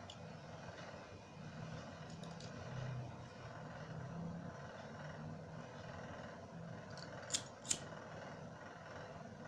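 Two sharp clicks about a third of a second apart, three-quarters of the way through, as a small battery cable connector and a small hand-held object are worked by hand; a faint steady hum runs underneath.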